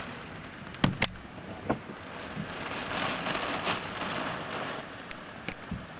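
Typhoon wind and rain, heard from indoors through a window, swelling in a gust partway through. There are three sharp knocks in the first two seconds and a few faint ticks near the end.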